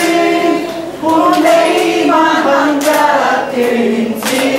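A small group of men and women singing a song together, one voice through a microphone, holding sustained notes in a melody with a short breath about a second in.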